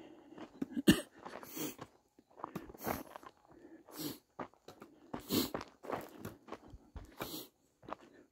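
A hiker's footsteps scuffing and crunching on a dirt and loose-rock trail, roughly one step every second or a little faster.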